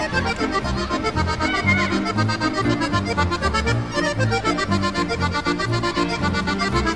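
Background music: a lively accordion-led traditional tune with a steady, bouncing beat.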